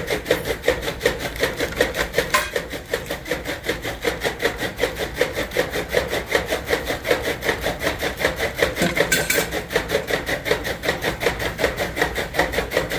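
A machine running with a fast, even beat of short strokes, about five a second, over a low steady hum.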